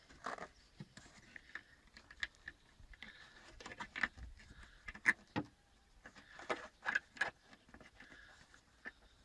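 A metal blade prying at the plastic ball-socket end fitting of a Citroen Xsara tailgate gas strut, making a string of irregular clicks, taps and scrapes.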